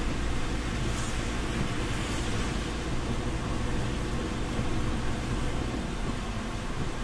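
Steady road noise inside a moving car's cabin on a wet road: tyre hiss on wet asphalt over a low engine and road drone.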